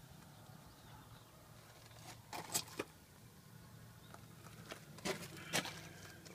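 Faint movement and handling noise: scattered sharp clicks and scuffs in two short clusters, about two and a half and five seconds in, over a faint low hum.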